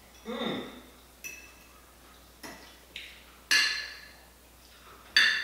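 Forks and knives clinking against dinner plates: several separate sharp clinks with a short bright ring, the loudest about three and a half seconds in.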